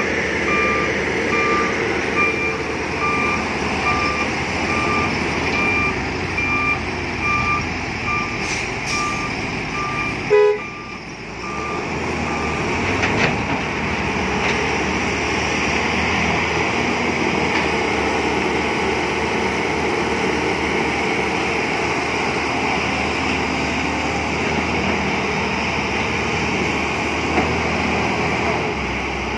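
Heavy diesel engines of a dump truck and an excavator running, with a reversing alarm beeping at an even pace for about the first ten seconds.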